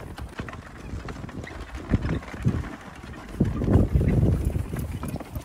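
Horse hooves clip-clopping while it pulls a cart over soft plowed ground. Gusts of wind buffet the microphone, heaviest a little past the middle.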